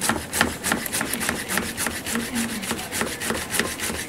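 Chef's knife slicing zucchini on a plastic cutting board: a quick, steady rhythm of sharp taps as the blade cuts through and strikes the board, several strokes a second.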